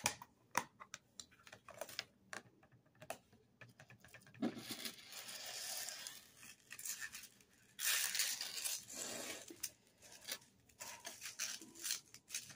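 Handling noises: sharp clicks and taps from a light plastic clamshell case being opened and set down, with two stretches of plastic crinkling and rustling about four and eight seconds in as a bra of holographic plastic panels joined by metal chain links is worked into the case.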